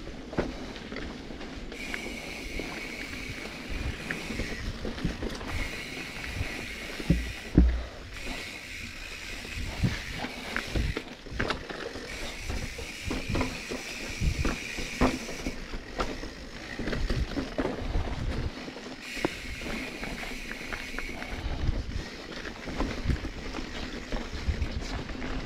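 Mountain bike ridden down a rough dirt trail: knocks and rattles of the bike over ruts and rocks, the loudest about seven seconds in, over a rough rush of movement and wind on the microphone. A high steady buzz comes and goes in stretches of a few seconds.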